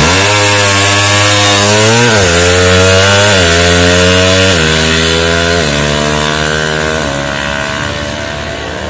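Drag-tuned Suzuki Satria FU 150 with a ported cylinder head, its single-cylinder four-stroke engine launching from a standstill and accelerating hard through the gears. The engine note climbs in each gear and drops at about five quick upshifts, fading as the bike pulls away.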